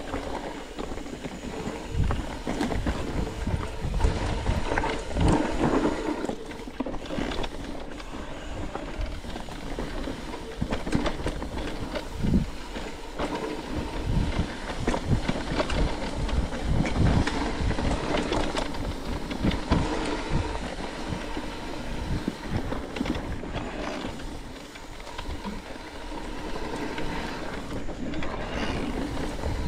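Mountain bike riding over a dirt and gravel trail: tyres rolling with a steady rattle, and frequent knocks and thumps as the bike goes over bumps.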